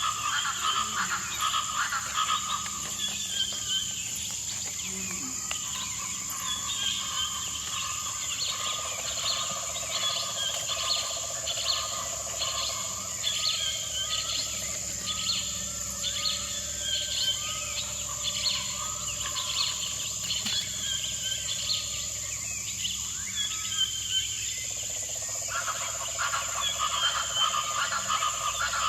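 Jungle ambience: many frogs calling in short, rapidly repeated croaks over a steady high-pitched insect drone.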